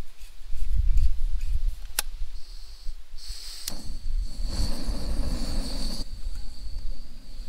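A backpacking gas stove on a Coleman fuel canister is fitted up and turned on. There is a sharp click about two seconds in, then a steady hiss of gas from about three seconds on. Another click comes with a louder rush of gas for a couple of seconds as the burner is lit.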